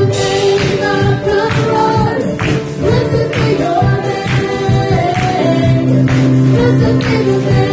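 A woman singing a gospel worship song into a microphone over amplified instrumental accompaniment with a steady beat.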